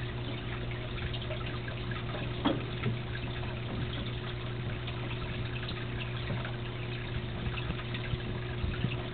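Aquarium water trickling and circulating over the steady low hum of a small aquarium pump, with scattered faint clicks and one sharper click about two and a half seconds in.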